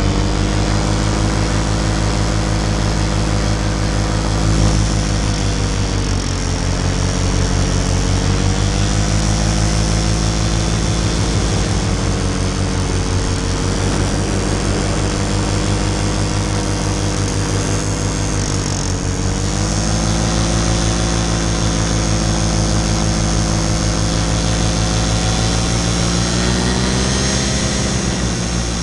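Paramotor engine and propeller running close up in flight, a steady buzzing drone. Its pitch drops and comes back up a few times, about a fifth of the way in, about two-thirds of the way in and near the end, as the throttle is eased off and opened again.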